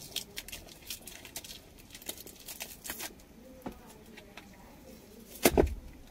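Plastic packaging wrap crinkling and clicking as a wrapped roll of stickers is picked open by hand, with one louder rip near the end as the wrap is torn.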